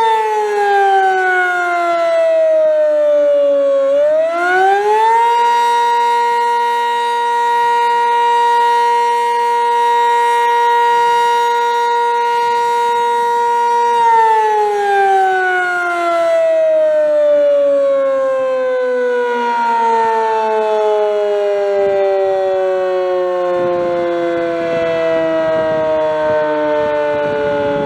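Sentry 15V2T outdoor warning siren, a dual-tone rotating siren, sounding the end of its attack signal. Its pitch drops for a few seconds, climbs back and holds steady for about nine seconds, then winds down in a long slow fall.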